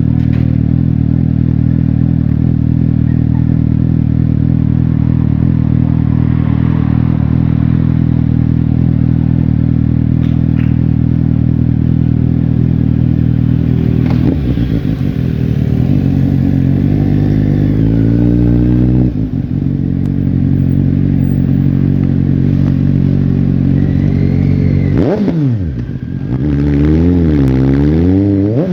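Suzuki GSX-S750's inline-four engine running steadily, then revved up about halfway through and let fall, then blipped up and down a few times in quick succession near the end.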